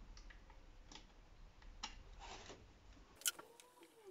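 Faint metallic clicks and rubbing of a screwdriver and fingers at a carburettor's linkage as its cables are unhooked, a few separate clicks with the sharpest near the end.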